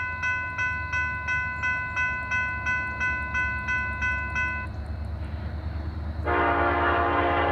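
A bell ringing about three strikes a second over the low rumble of the diesel locomotives, stopping a little past halfway. About a second and a half later the lead locomotive's air horn, on Norfolk Southern SD70ACe 1173, starts a loud held chord.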